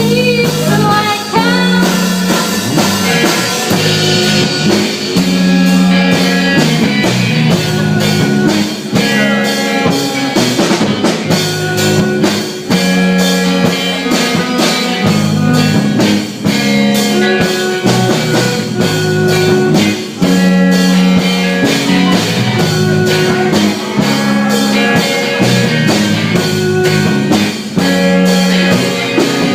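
Rock band playing live: electric guitar and drum kit over a steady beat.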